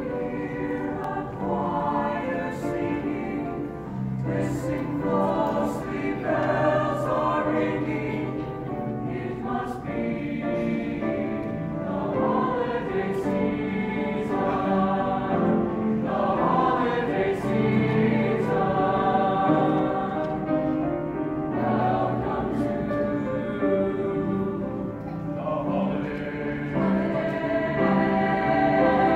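A mixed choir of young men's and women's voices singing a holiday song in harmony, with grand piano accompaniment, heard from the audience seats of an auditorium.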